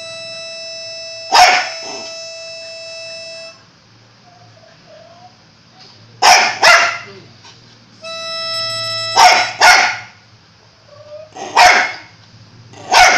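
A Jack Russell terrier barks sharply about seven times, several barks in quick pairs, answering a tiny harmonica. The harmonica plays a long held note at the start and a shorter one about eight seconds in. The barks are the loudest sounds.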